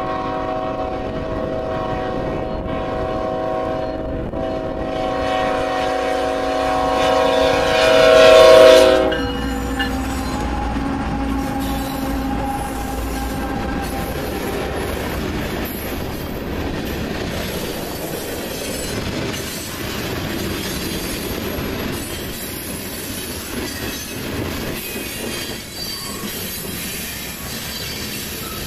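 A diesel freight locomotive's multi-note air horn sounds one long continuous blast at a grade crossing. It grows louder as the locomotive closes in and cuts off about nine seconds in. After that, a long string of loaded freight cars rolls past, their wheels making a steady rolling noise on the rails.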